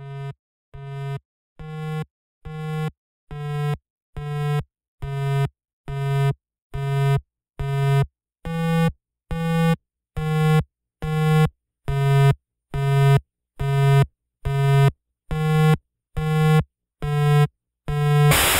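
Electronic background music: a low synthesizer tone pulsing a little more than once a second, each pulse swelling and then cutting off sharply, growing steadily louder. Near the end a wash of noise and fuller synth sound comes in.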